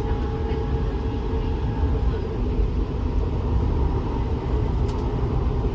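Interior of a Seattle Link light-rail train in motion: a steady low rumble with a faint whine that fades out about halfway through.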